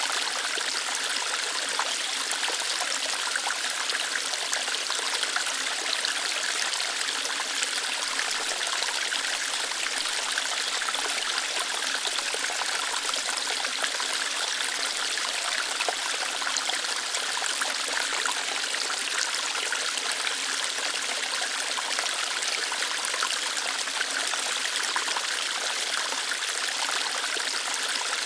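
Small waterfall flowing lightly over rocks: a steady, even rush of water with trickling, mostly high in pitch.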